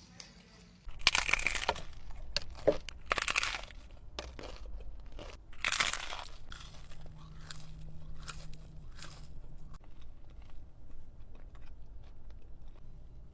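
Crisp food being bitten and chewed: loud crunches about one, three and six seconds in, with smaller crackles between, settling into quieter chewing clicks.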